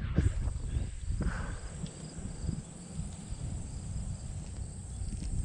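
Outdoor ambience: insects chirping faintly over a low, uneven rumble on the microphone.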